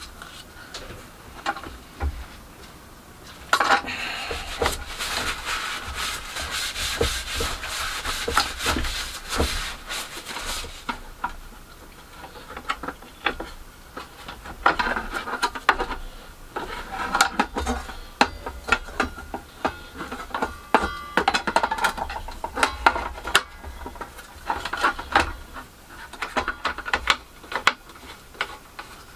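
Reassembly of an Erbauer mitre saw by hand: many irregular clicks, knocks and rubbing of its plastic housing and metal parts being fitted together, with a screwdriver at work near the end.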